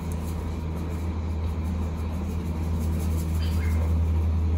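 Steady low rumble, with a few faint rattles of a seasoning shaker being shaken.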